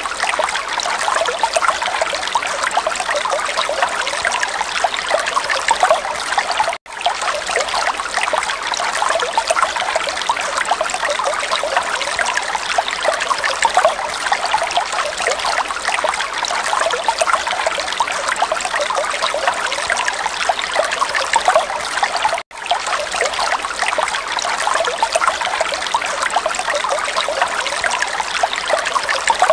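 Steady trickling, babbling running water with no music or voice. It cuts out for a split second twice.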